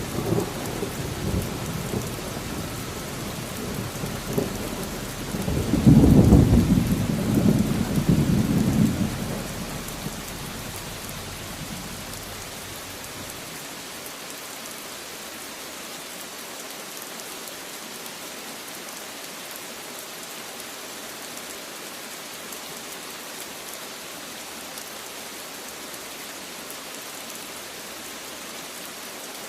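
Steady heavy rain with a roll of thunder: low rumbles in the first seconds swell to the loudest peal about six seconds in, then die away, leaving only the even hiss of the rain.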